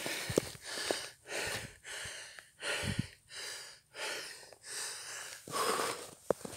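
A man's heavy, fast breathing close to the microphone, about nine hard breaths in and out: he is out of breath from running uphill. A low thump comes about halfway through.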